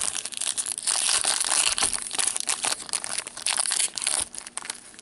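Foil wrapper of a 2015-16 O-Pee-Chee Platinum hockey card pack crinkling as it is handled and opened: a dense, rapid crackle throughout.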